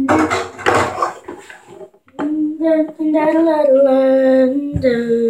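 For the first two seconds or so, a rough breathy hissing noise. Then a child's voice sings long held notes of a wordless tune.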